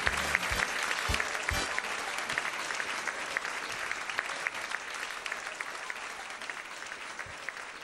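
Audience applauding, the clapping slowly thinning out and growing quieter.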